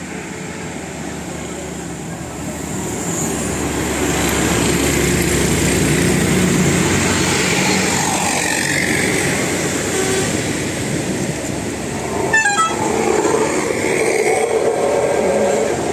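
A bus's multi-tone telolet horn playing over passing traffic and engine noise, the road noise swelling a few seconds in. There is a brief rattle of clicks about twelve seconds in.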